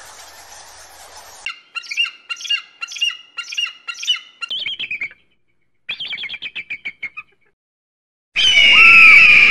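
Eagle calls: a series of about seven sharp repeated notes, then a quick chattering run, then a much louder, drawn-out scream with a falling whistle near the end.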